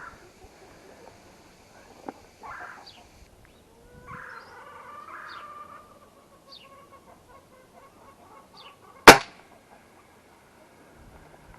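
A single sharp shot from a pellet gun about nine seconds in, by far the loudest sound, with a few faint bird chirps before it.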